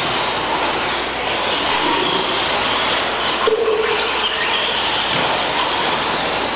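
Electric brushless RC stadium trucks racing on a dirt track: a steady mechanical noise with a wavering high motor whine. A short steady tone sounds about three and a half seconds in.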